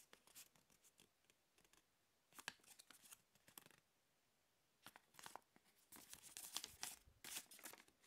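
Faint rustling and crackling of a folded paper safety leaflet as it is unfolded and handled, coming in short spells with a quiet gap a little before the middle.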